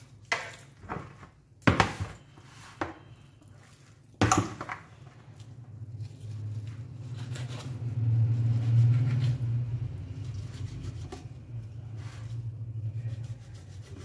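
Knife and hands knocking and clattering against a plastic basin while trimming a raw leg of mutton: a few sharp knocks in the first four seconds or so, then a steady low hum underneath the quieter handling.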